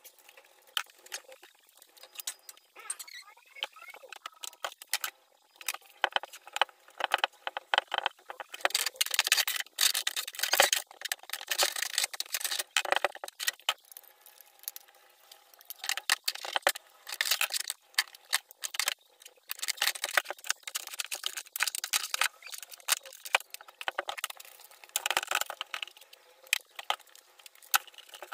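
Dusting by hand: a microfiber cloth rubbing and wiping over furniture and small objects in irregular scratchy strokes. Light clicks and clinks come as items are picked up and set down.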